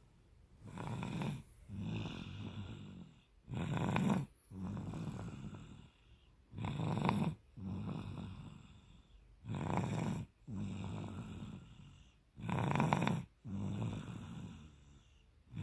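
Snoring in deep sleep: a loud, rasping snore on each breath in, about every three seconds, five times, each followed by a softer, longer breath out.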